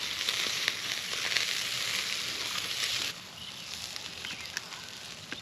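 Hamburger patties sizzling on a grilling grate: a steady frying hiss with scattered crackles that drops quieter about three seconds in.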